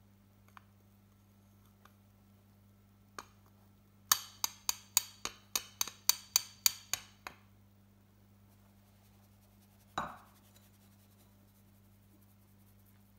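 Fine-mesh metal sieve of cocoa powder tapped against a stainless steel mixing bowl to shake the cocoa through: about a dozen sharp metallic clinks, roughly four a second, then one louder ringing clank a few seconds later.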